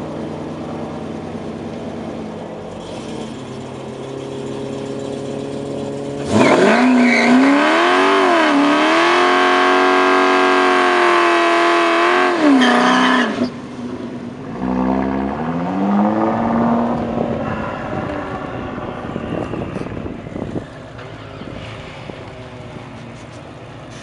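Chrysler 300C's V8 idling, then about six seconds in it revs up suddenly and is held at high revs for about seven seconds in a burnout, rear tyres spinning. It drops off, gives a shorter rev, and settles back to a lower running note.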